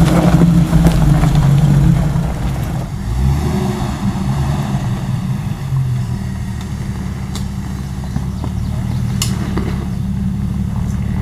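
Jeep Wrangler engines crawling slowly over a rocky trail. One engine is close and loud for the first two seconds or so, then another runs more quietly and steadily at low speed, with a couple of sharp clicks later on.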